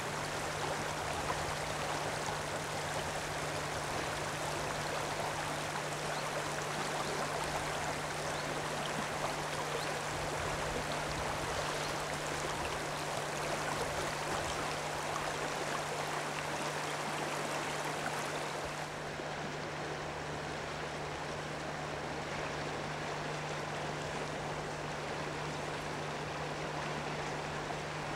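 River water running over a shallow stony riffle, a steady even rush, with a steady low hum underneath. About two-thirds of the way through the rush turns slightly duller and quieter.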